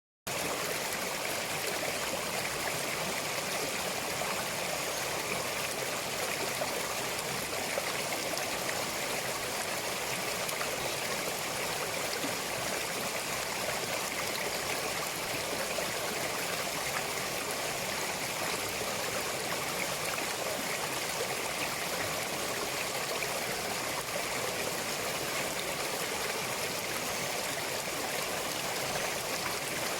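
A mountain stream flowing steadily over rocks, an even rushing with trickling and gurgling.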